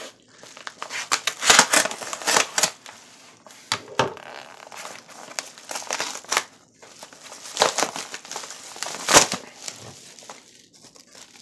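Yellow padded bubble mailer being cut and torn open by hand, its paper and bubble-wrap lining crinkling and crackling, with bubble-wrapped packets rustling inside. The noise comes in irregular bursts, loudest a couple of seconds in and again just past nine seconds.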